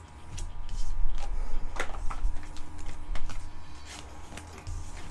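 Trading cards and booster-pack wrappers being handled on a table: rustling and sliding with light clicks, plus dull knocks against the table.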